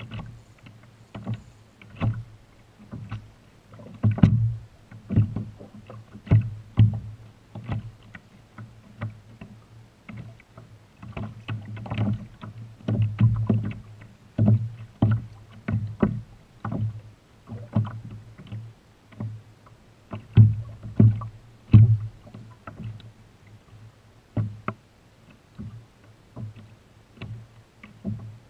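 Small waves lapping against a kayak hull: irregular dull knocks and slaps, coming in clusters with short lulls.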